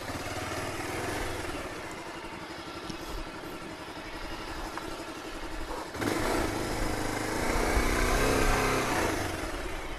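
Bajaj Pulsar 220F's single-cylinder engine running at low speed, getting louder for about three seconds from around six seconds in while the bike is eased into a parking spot in first gear.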